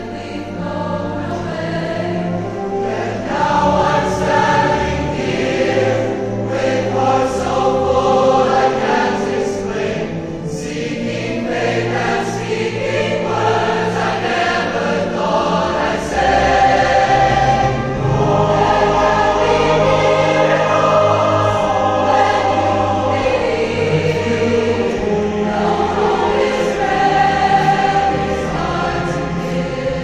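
Large mass choir singing in full harmony with sustained notes over orchestral and wind-ensemble accompaniment.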